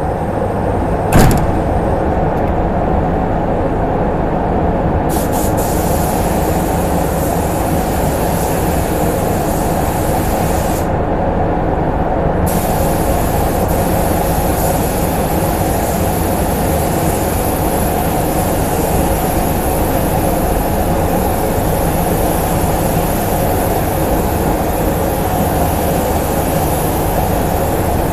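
Paint booth ventilation running with a loud, steady noise and a single sharp knock about a second in. From about five seconds in, the air hiss of a gravity-feed paint spray gun joins, stopping for a second or two near the middle and then going on.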